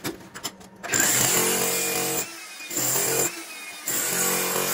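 Electric demolition hammer chiselling into very hard concrete, running in three bursts of about a second each with short pauses between them; a few light knocks come just before it starts.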